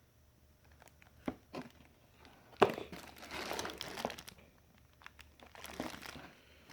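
Plastic packaging crinkling with scattered small clicks and knocks as the parts are handled; the rustling is loudest a little under halfway through.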